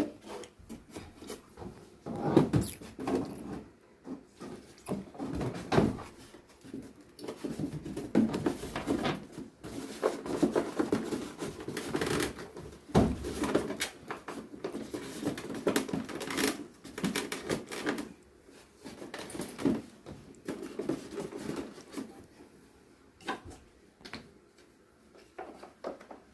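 Irregular clicks, knocks and rattles of a seized electric fan motor's parts being handled and worked on during repair.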